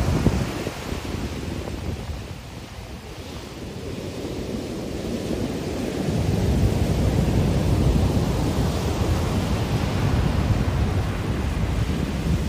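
Ocean surf breaking and washing up a sandy beach, with wind buffeting the microphone. The surf eases for a couple of seconds, then swells again about halfway through.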